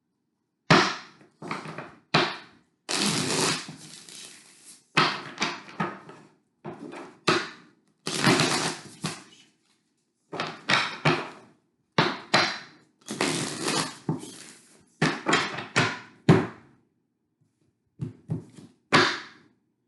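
Tarot deck being shuffled and handled: a run of short, sudden noisy bursts, some about a second long, separated by brief gaps.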